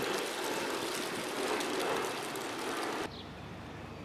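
Steady outdoor background hiss that cuts off abruptly about three seconds in, giving way to a quieter background with a faint bird chirp.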